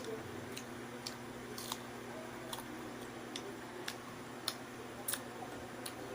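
Mouth sounds of someone eating ripe mango close to the microphone: soft wet clicks and smacks, about ten spaced irregularly, over a faint steady hum.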